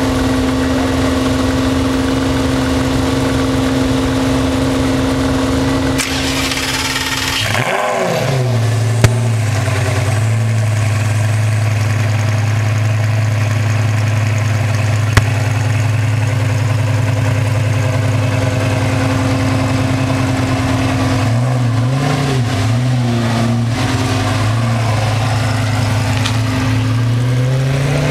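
Lamborghini Gallardo Spyder's V10 idling through an aftermarket LOC exhaust, heard right at the tailpipe. About seven seconds in the revs rise briefly and fall back to a lower, steady idle, with a few light throttle blips about three-quarters through and the revs climbing near the end as the car pulls away. Two short clicks, about nine and fifteen seconds in.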